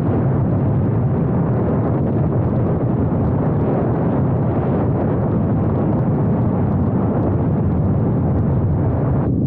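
Steady wind roar buffeting the microphone of a Triumph Scrambler 900 motorcycle as it cruises at road speed, mixed with the running of its parallel-twin engine.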